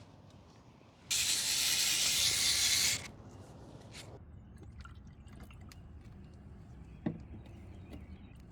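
Honda coolant poured from a bottle into a motorcycle's coolant reserve tank, running for about two seconds and stopping abruptly, while the tank is topped up to the neck after the air has been bled out. Small clicks and a knock follow about seven seconds in.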